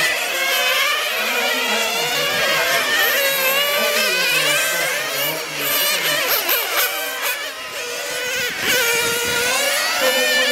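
Several 1/10-scale nitro RC touring cars racing, their small two-stroke glow engines screaming and overlapping, each rising and falling in pitch as the cars accelerate, brake and pass.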